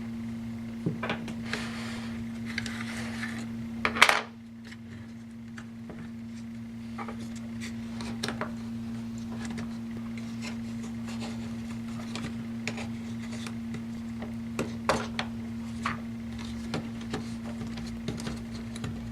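Scattered clicks and light knocks of small laptop parts and tools being handled during disassembly, with one sharper knock about four seconds in and a brief rubbing sound before it. A steady low hum runs underneath.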